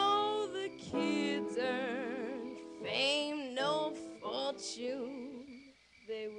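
Soundtrack music: a song with a voice holding long notes with strong vibrato over held accompaniment chords.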